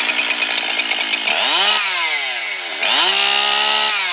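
Two-stroke chainsaw engine revving at high speed, its pitch climbing sharply about one and a half and three seconds in, sinking in between and again near the end.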